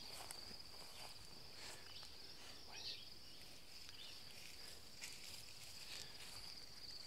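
Steady high-pitched insect chorus, with faint swishing of footsteps pushing through tall weeds and grass.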